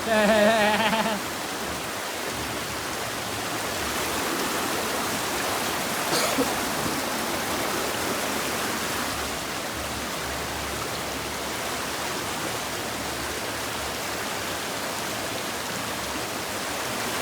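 River water running steadily over rocks in a continuous rush. A person's voice gives a brief loud call at the very start.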